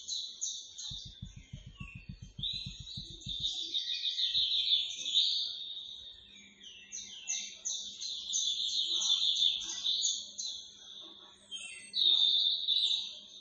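Many small birds chirping and chattering together in a dense, continuous chorus of rapid high notes. A brief fast run of low rattling knocks sounds about a second in.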